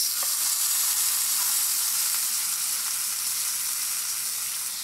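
Marinated oxtail searing in a hot cast iron skillet: a loud, steady sizzle that starts suddenly as the piece goes into the pan and eases off slightly.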